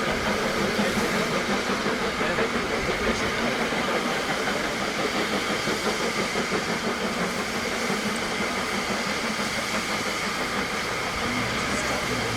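Steam-hauled train running on the climb with a steady rumble and hiss, its sound slowly fading as it draws away.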